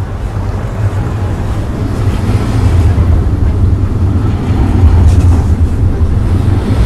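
Added sound-effects ambience: the low, steady rumble of a vehicle, growing louder over the first few seconds.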